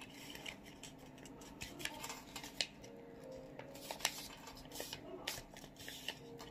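Orange craft paper being folded in half and creased by hand on a tabletop: faint, scattered paper crackles and small taps, the sharpest a little over two and a half seconds in.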